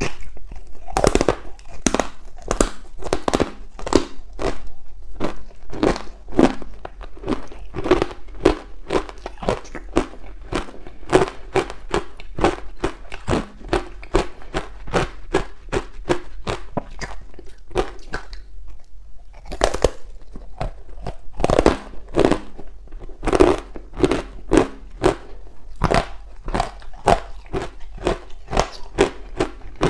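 Ice being bitten and chewed, a block coated in matcha powder: crisp crunches at about three a second, with a short lull about two-thirds through and louder bites right after.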